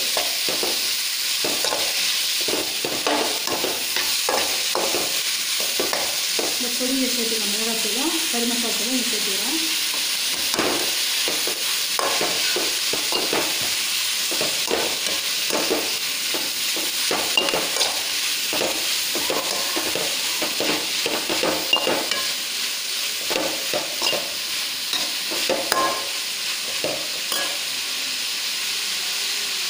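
Cauliflower sizzling as it fries in a metal wok while a perforated metal ladle stirs it, scraping and knocking against the pan over and over. The stirring stops near the end, leaving the steady sizzle.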